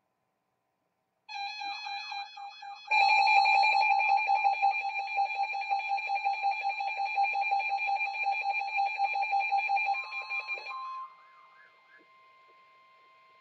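Emergency Alert System alert tone. A steady electronic tone with a warbling edge starts about a second in. About three seconds in, a much louder, harsh, steady tone with a fast buzzing flutter takes over and holds for about eight seconds. Near the end it drops away to a faint lingering tone.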